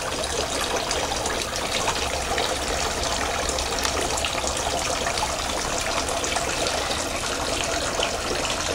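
Tiered garden fountain with water splashing and trickling steadily.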